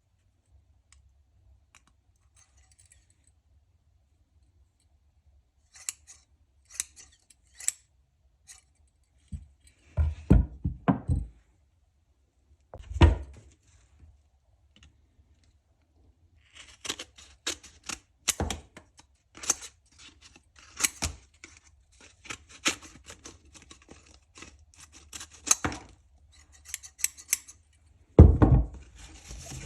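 Freshly restored pair of scissors opening and closing, the blades snipping in a run of sharp clicks. A few dull knocks of the scissors being handled or set down come in between and again near the end.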